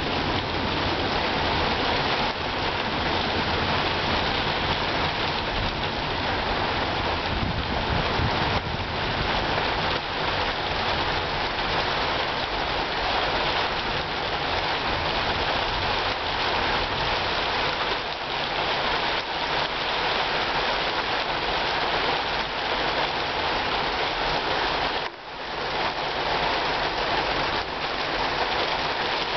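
Rain pouring down steadily during a thunderstorm, an even, dense hiss, with one brief dip in the sound near the end.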